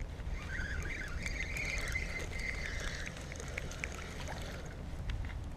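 Spinning reel cranked to bring in a small hooked largemouth bass, its gears giving a wavering whirr for the first few seconds, followed by a few light clicks. A steady low rumble of wind on the microphone runs underneath.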